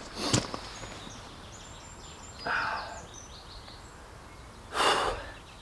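A man breathing hard after heavy lifting, three heavy breaths about two seconds apart, with faint bird chirps between them.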